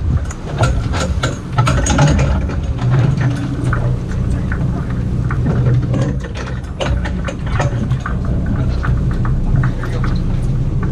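A sportfishing boat's engine idling with a steady low hum, with scattered clicks and knocks from gear on deck.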